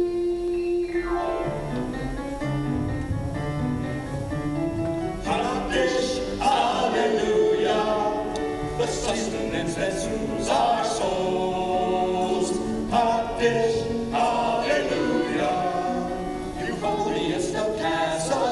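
Gospel-style choir singing, with a held note at the start and fuller sung phrases from about five seconds in.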